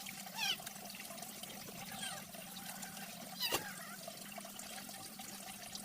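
Water trickling and pouring steadily, with a few short, sharp water sounds; the loudest is about three and a half seconds in.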